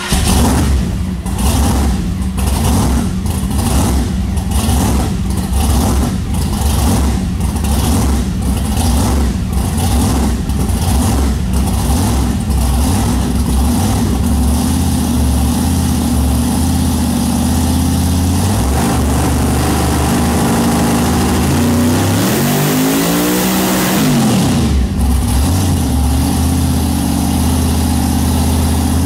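Supercharged big-block Chevy V8, just started, idling with an even rhythmic lope. About 22 seconds in it is revved once, rising and falling back, then settles to a steady idle.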